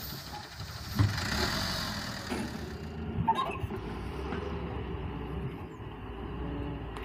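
Doosan 180W wheeled excavator's diesel engine running steadily as the machine works, with a sharp clunk about a second in.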